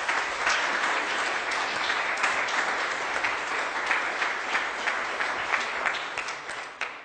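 Audience applauding: many hands clapping steadily, easing a little near the end.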